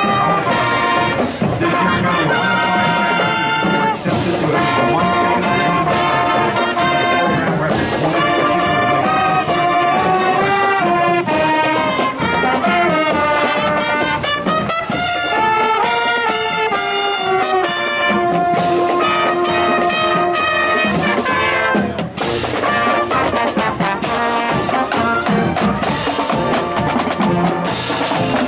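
High school marching band playing, with trumpets and trombones carrying the melody over drums. The drums come forward near the end.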